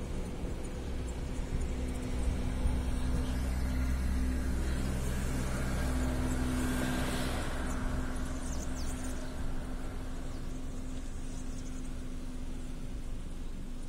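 Car engine running with a steady low hum. A broad rush of noise swells and fades around the middle.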